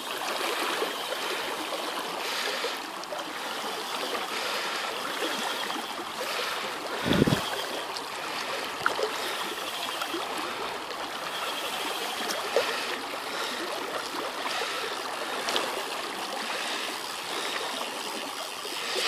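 Shallow river current running steadily over gravel and breaking around a wading angler's legs, with a brief low thump about seven seconds in.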